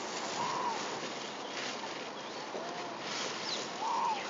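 Rhesus macaques giving short, arching coo calls: three in all, about half a second in, near the middle and near the end, over steady background noise.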